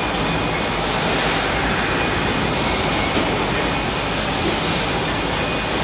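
Packing machinery on a bottling line running: a steady, even mechanical noise with no distinct strokes or pauses.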